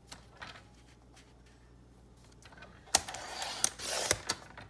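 Paper being cut and handled: quiet at first, then about three seconds in a sharp click followed by about a second of rustling and scraping of paper with a few sharper snaps.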